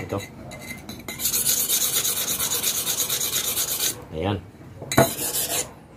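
A steel hand-plane blade rubbed back and forth on a sharpening stone in quick, even strokes, honing its edge. The scraping starts about a second in and stops just before four seconds, followed by a single click about five seconds in.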